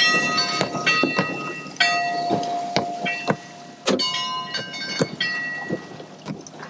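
Bell buoy ringing at uneven intervals as it rocks on the swell: about five clanging bell strikes, each ringing on and fading, with sharp metallic knocks in between.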